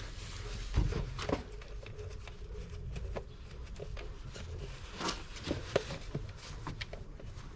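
Plastic air filter housing and intake duct being pushed and seated by hand: scattered light clicks and knocks of plastic on plastic, the sharpest about a second in and about five seconds in.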